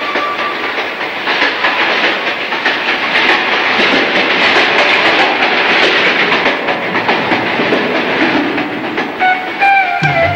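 A loud, steady rushing clatter made of many small rapid clicks, with music coming in near the end.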